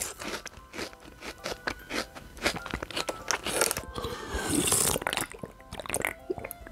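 Crisp crunching and biting foley of dry instant noodles being eaten, in many irregular crackly bites, with a brief hiss about four and a half seconds in. Soft background music runs underneath.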